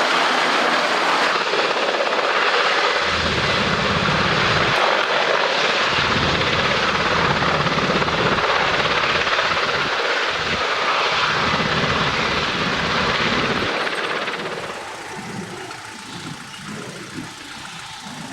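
Aircraft passing: a loud steady roar with a low rumble through the middle, fading away in the last few seconds.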